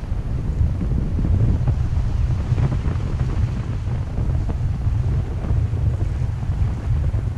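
Wind from a paraglider's flight buffeting the microphone of the pilot's body-mounted camera: a steady, uneven low rumble of wind noise.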